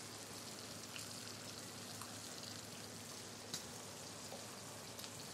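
Pieces of saddle of venison frying in butter in a pan: a faint steady sizzle with a few small pops.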